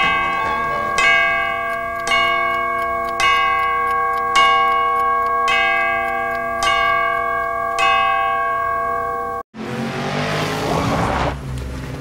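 Ornate mantel clock striking the hour eight times, one ringing bell stroke about every second, each stroke ringing on into the next. The ringing cuts off suddenly and gives way to about two seconds of rushing noise.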